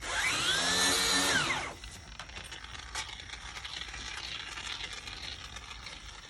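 Cordless drill spinning up and running for about a second and a half, its whine rising and then falling in pitch as it winds down, followed by quieter handling noise.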